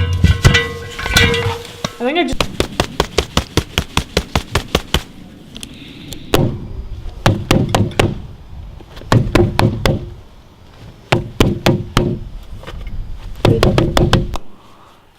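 Cartoon foley sound effects: a quick run of sharp knocks or taps, about six a second. Then come several shorter bursts of taps with a low tone under them.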